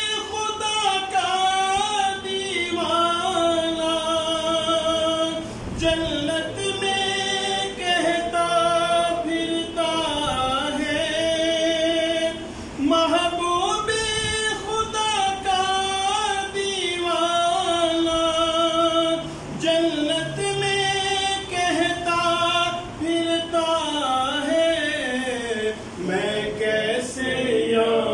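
A man reciting a naat, an Urdu devotional poem in praise of the Prophet. He sings it solo and unaccompanied in long, held, wavering notes.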